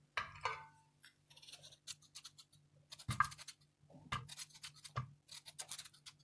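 Kitchen knife slicing a raw peeled potato into thin rounds held in the hand: a run of short, crisp cutting strokes coming in bursts about every second, some ending in a soft knock.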